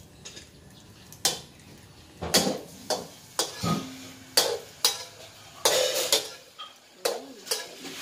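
Metal spatula clanking and scraping against a steel wok during stir-frying, a string of irregular knocks beginning about a second in.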